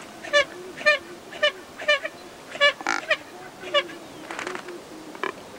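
A waterbird calling in a rhythmic series of short, evenly pitched calls, about two a second, with one harsher, noisier call about three seconds in; a few fainter calls follow near the end.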